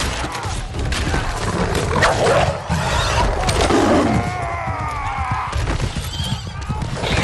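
Film battle sound effects of horsemen clashing with wargs: a continuous low rumble of galloping hooves with scattered impacts, a deep falling snarl, and a horse's wavering neigh about four seconds in.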